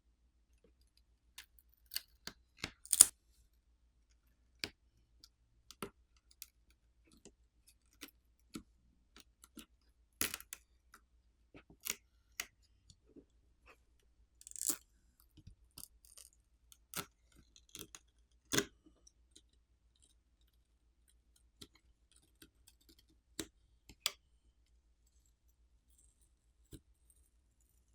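Scattered small clicks and taps of hand tools and small parts handled during a tablet teardown, irregular and sparse, with the sharpest clicks about three seconds in and again past the middle.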